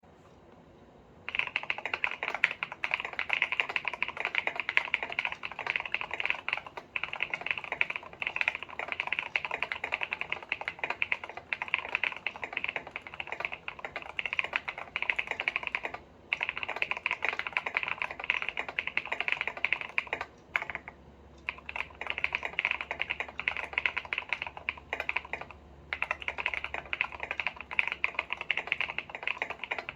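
Fast typing on a Keychron V1 mechanical keyboard with stock Feker Matcha linear switches, a polycarbonate plate, PE foam, polyfill and a two-layer tape mod, giving a thocky keystroke sound. Typing starts about a second in and goes on in quick runs, with a few short pauses.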